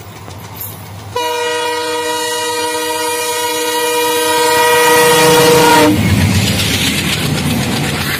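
Air horn of an Indian Railways WDM3D ALCO diesel locomotive sounding one long chord-like blast of about five seconds, starting about a second in. As the horn stops, the locomotive's engine and then its coaches go rushing past close by on the adjacent track.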